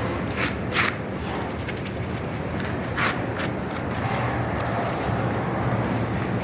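Three short rasps of masking tape being pulled off the roll, about half a second, one second and three seconds in, over a steady low hum.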